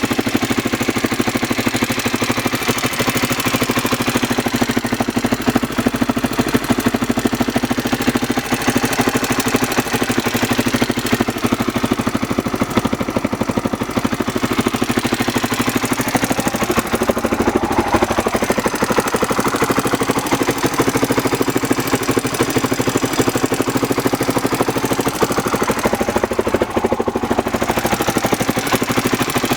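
Honda XR600R's air-cooled single-cylinder four-stroke engine idling steadily, with the ticking noise the owner is asking about.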